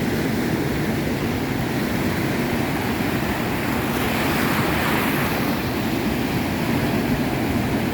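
Rough ocean surf breaking in a heavy swell: a steady rush of water, swelling a little about halfway through, with wind rumbling on the microphone.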